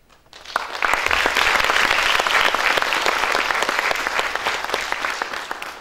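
Audience applauding: clapping starts about half a second in, builds to full within a second, holds, and fades out near the end.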